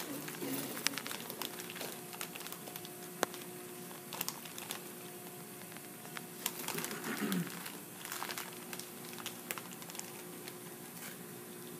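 Fabric pieces being handled and smoothed at a sewing machine: rustling and crinkling with scattered small clicks, over a steady faint hum.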